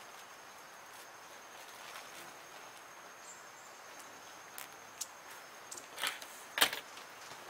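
An insect's steady high-pitched trill over quiet outdoor background, with scattered light clicks. Near the end come two sharp knocks or rustles, the second the loudest sound here.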